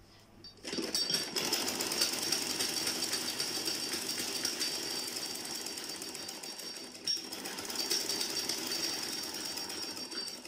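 Sewing machine running at speed, stitching the side seam of a cotton kameez in a fast, even rattle of needle strokes. It starts just under a second in and eases briefly a little after the middle.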